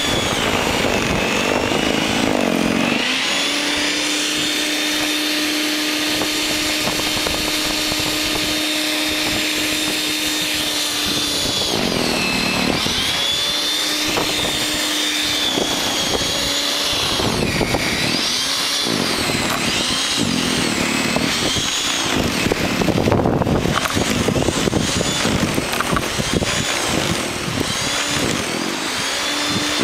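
WEN 5662 13.5-amp electric snow thrower running with a steady motor whine that sags in pitch several times and comes back up. The motor is bogging down as the auger chews through heavy, wet snow.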